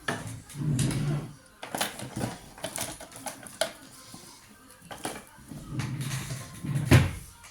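Metal computer parts being handled: a run of clicks, clinks and knocks, with two short rough scraping passes, the second ending in a loud knock near the end.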